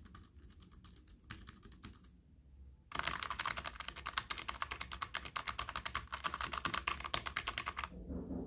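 Rapid typing on a mechanical keyboard with linear red switches (Logitech G915). There are light keystrokes for about two seconds, a short pause, then from about three seconds in a dense, louder run of fast keystrokes that lasts about five seconds.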